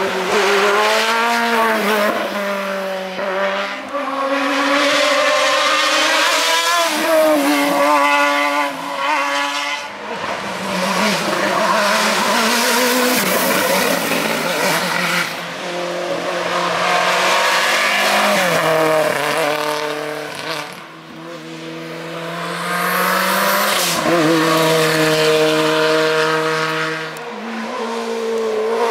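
Race car engine at full throttle, its pitch climbing hard through each gear and dropping on shifts and lifts, over and over, as a competition car drives up a hill climb course.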